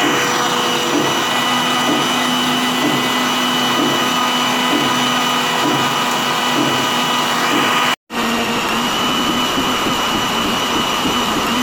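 Electric mixer grinder running steadily, grinding soaked figs in their soaking water into juice, a steady high whine over the motor noise. It cuts out for an instant about eight seconds in, then runs on.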